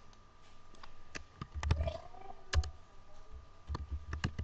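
Typing on a computer keyboard with mouse clicks: a dozen or so short, sharp key and button clicks at irregular intervals.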